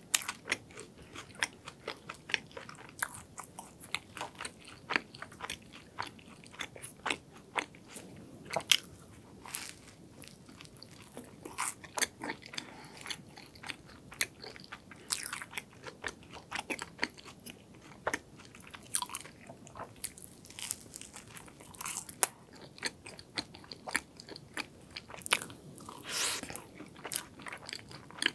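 Close-miked eating of a croffle (croissant-dough waffle): crunchy bites into the crisp pastry and chewing, heard as many small, irregular crackles.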